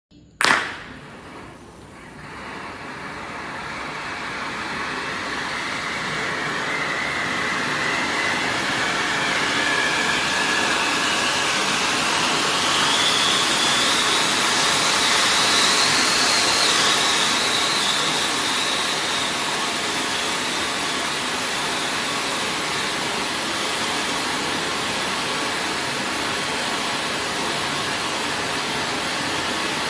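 Ground fireworks fountain (a 60-second, three-layer cake) ignited with a sharp crack about half a second in, then spraying sparks with a steady hiss that builds over the first several seconds. A faint whistle inside the hiss climbs slowly in pitch and then eases back.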